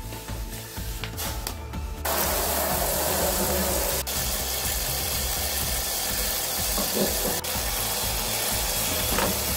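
Liquid pouring into a plastic tub and frothing up, a steady hiss that starts suddenly about two seconds in, over background music.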